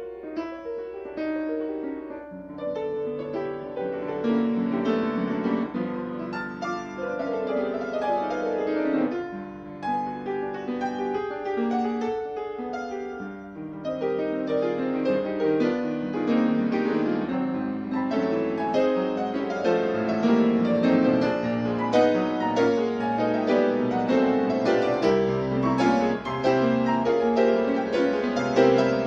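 Piano music: a busy run of notes over low chords, growing louder about halfway through.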